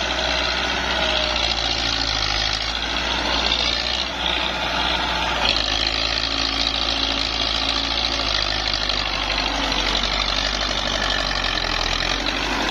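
Belarus MTZ-50 tractor's four-cylinder diesel engine running steadily under load while pulling a tine cultivator through dry, cloddy soil, its note shifting slightly a few seconds in. It pulls without bogging down.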